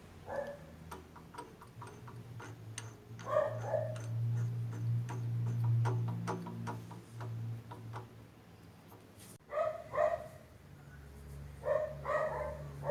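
A dog barking four times, in short barks a few seconds apart, over a low steady hum with light ticking.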